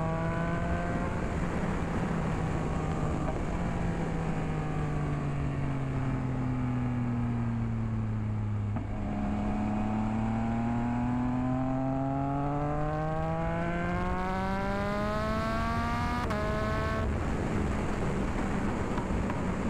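Motorcycle engine with wind rushing past a helmet camera. The engine note falls for about nine seconds as the bike slows, then climbs steadily as it accelerates, and drops abruptly at a gear change near the end.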